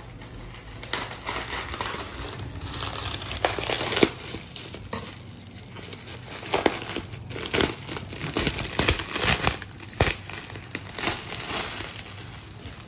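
Plastic cling film crinkling and tearing as it is cut open with kitchen scissors and pulled back off a tray: irregular crackling with a few sharper snaps.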